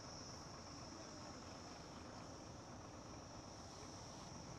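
Faint, steady high-pitched chirring of insects in the riverside vegetation, over a low even background hiss.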